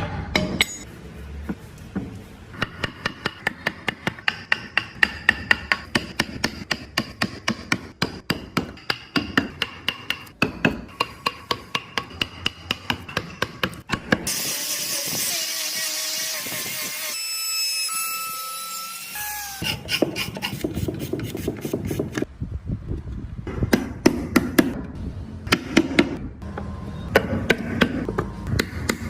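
Hammer blows on a carving chisel cutting into wood, about three strikes a second with a metallic ring. Around the middle, a few seconds of steady whirring, then slower, irregular knocking and scraping.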